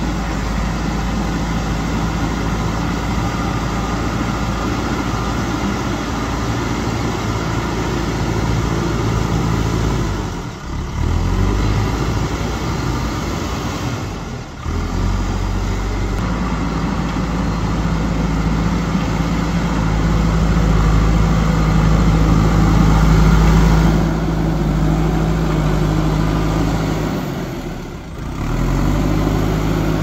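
JCB backhoe loader's diesel engine running steadily as the machine works its front loader bucket in soil. It grows loudest about two-thirds of the way through, with brief drop-outs a third of the way in, around halfway and near the end.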